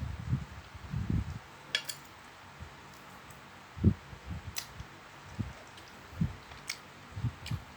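Close-up eating sounds of lanzones: irregular soft chewing and mouth squishes, with a few sharp little clicks between them.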